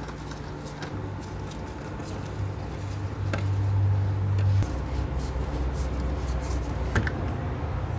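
Screwdriver tightening the hose clamps on a car's rubber air-intake hose: a few faint clicks and scrapes of tool on clamp, over a steady low hum that drops in pitch about halfway through.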